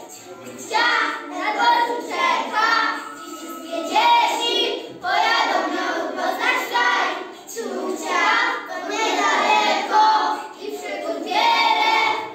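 A group of young children singing together in phrases, with short breaks between the lines.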